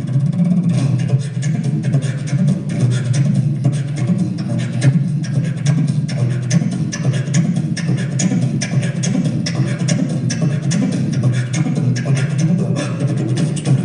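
Live percussion playing a fast, dense rhythm of rapid strokes without a break.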